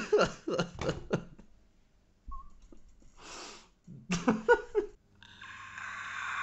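A man laughing in short bursts, then a breathy exhale and another brief burst of laughter. About five seconds in, a steady hum with a hiss starts.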